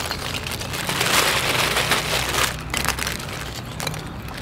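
Lumps of lump charcoal being handled and set into a bed of sand by a hand in a disposable plastic glove: crunching and clinking of the charcoal with crinkling plastic. It is busiest in the first half and quieter near the end.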